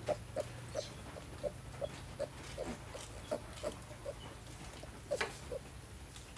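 Piglets grunting in a quick series of short grunts, about two or three a second, with a brief pause shortly before the end.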